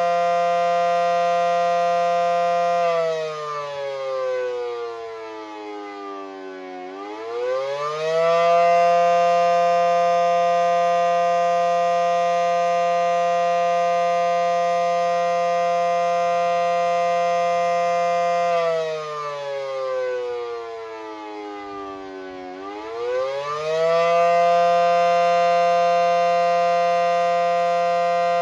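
Federal Signal SD10 dual-tone outdoor warning siren sounding the attack signal: it holds a steady two-note chord, then twice winds down in pitch and climbs back up again.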